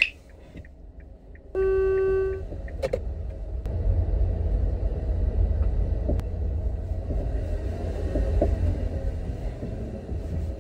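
Inside a car's cabin as it pulls away slowly: a steady low engine and road rumble, after a single electronic beep about a second long near the start.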